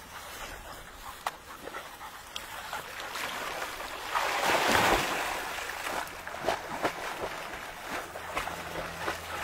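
Yellow Labradors splashing into a pond: a big splash as one bounds into the water about four to five seconds in, then lighter splashing and paddling as dogs wade and swim.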